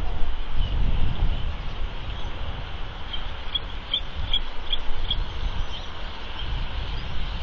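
Bald eagle calling: a run of about six high, piping chirps a little under half a second apart, starting about three seconds in and trailing off fainter. Steady wind rumble on the microphone underneath.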